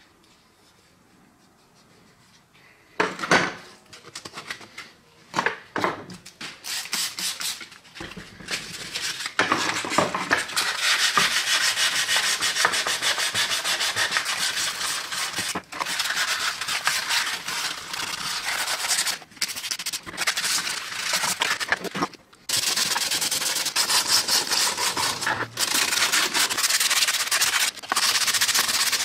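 Sandpaper rubbed by hand over the plastic housing of an old electric drill. After a few quiet seconds come a few separate scratchy strokes, then steady back-and-forth sanding with brief pauses.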